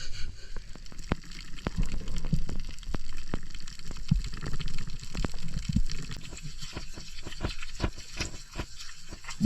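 Sea water sloshing and bubbling around the camera, with many irregular sharp clicks and knocks.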